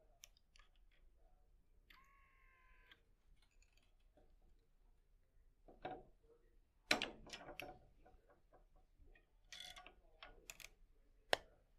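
Scattered quiet clicks and clacks of tennis string clamps and string being handled on a portable racquet stringing machine, with a brief squeal about two seconds in, the loudest clack about seven seconds in and a sharp click near the end.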